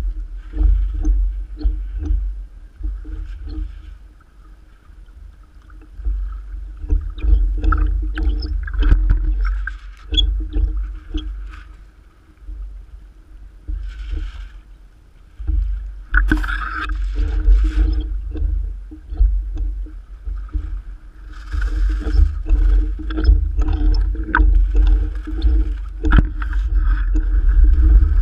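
Wind buffeting a camera at the waterline, coming and going in gusts, with small choppy waves splashing and slapping close by and against a model sailing yacht's hull.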